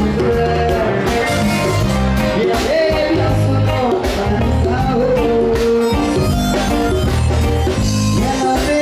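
Music with a steady drum beat, a bass line and a gliding lead melody.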